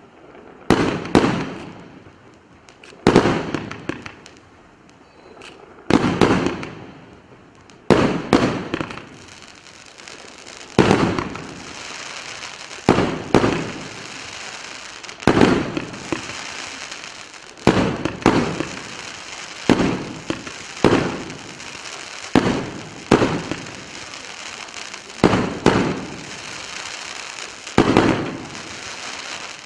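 A 100-shot, 30 mm fireworks cake firing its shells in turn: loud bangs about every one to two seconds, each fading out. From about ten seconds in, a steady crackle of crackling stars and sparks fills the gaps between the bangs.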